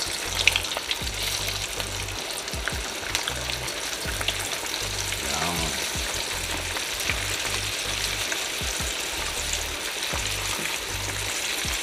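Flour-dredged chicken pieces frying in a pot of hot oil: a steady sizzle with frequent small crackles.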